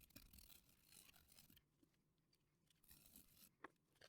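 Near silence, with faint rustling and one light click about three and a half seconds in.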